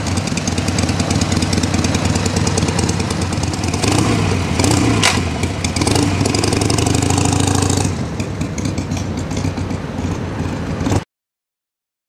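Harley-Davidson Sportster 883's air-cooled V-twin engine running at idle, a little louder for a few seconds about four seconds in, then settling back. The sound cuts off suddenly near the end.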